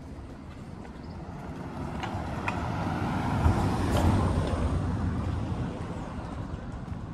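A car passing close by: the noise of its engine and tyres on the asphalt swells, peaks about four seconds in, then fades as it drives off.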